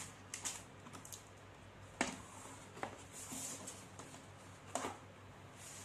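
Quiet handling of a cardboard retail box being opened: a few scattered sharp taps and clicks, and a short scraping rustle near the middle.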